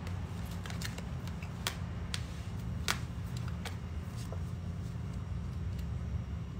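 Tarot cards being handled and shuffled: a scatter of light clicks and snaps over the first four seconds. A steady low hum runs underneath.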